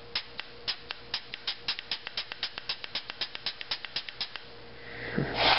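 Prototype two-stage anti-chop bolt in a Smart Parts Ion paintball marker clicking rapidly, about four to five sharp clicks a second, over a faint steady tone as the gun vents air, the low-force bolt stopping against a paintball held in the breech instead of chopping it. The clicking stops about four seconds in, followed by a short hiss near the end.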